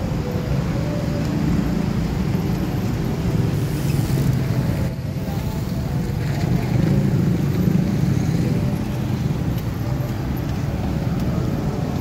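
Road traffic: cars and motorcycles passing close by, a steady mix of engine and tyre noise that swells a little about halfway through.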